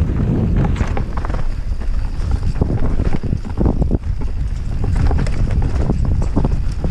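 Wind buffeting the microphone while a mountain bike is ridden down rough trail, with a steady low rumble and frequent sharp rattles and knocks from the bike over the ground.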